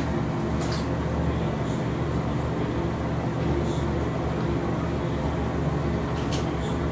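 Steady low rumble with a constant hum and no words, like a running motor or machinery in the background.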